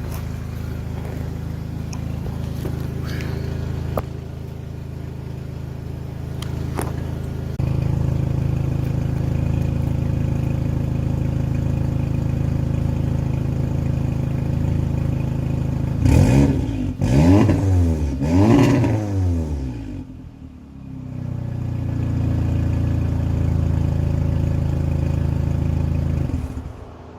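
Audi S3 turbocharged four-cylinder with a catless downpipe, heard at the exhaust: idling steadily, then blipped three times in quick succession about midway, each rev rising and falling, before settling back to idle.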